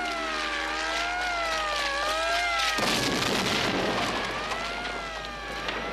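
An alarm siren wailing, its pitch rising and falling about every second and a half. About three seconds in, a sudden loud rush of noise breaks in over it and keeps going.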